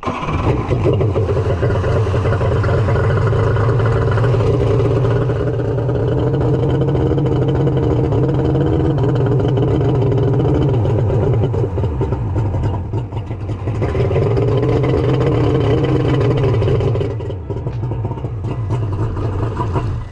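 Kawasaki 1100 triple two-stroke jet ski engine starts, runs and is revved with a brief dip in the middle, settles lower near the end, then cuts off. It is not running right, which the owner takes for an ignition problem, though he says it could be crankcase volume.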